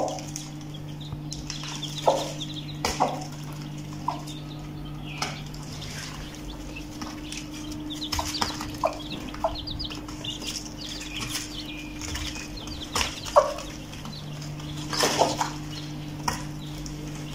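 Young chicks peeping in short high cheeps while an Aseel hen clucks now and then, with occasional sharp taps as she pecks feed off the cardboard floor. A steady low hum runs underneath.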